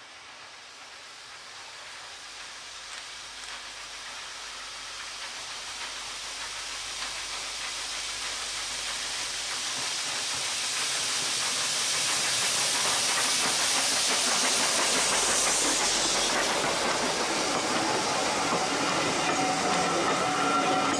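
Steam locomotive approaching with its hiss and exhaust growing steadily louder, passing close by about two thirds of the way in, then its train of wooden carriages rolling past with a thin wheel squeal near the end.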